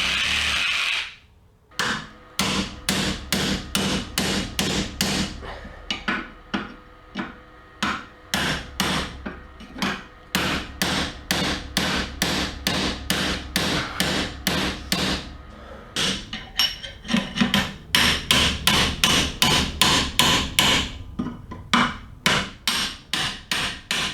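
A reciprocating saw running, stopping about a second in, followed by a long run of hammer blows on metal, about two to three strikes a second in uneven bursts, driving the slit steel sleeve of the old bushing out of the engine mount.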